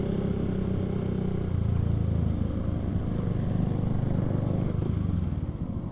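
Motorcycle engine running while riding, its note dropping to a lower, rougher sound about a second and a half in.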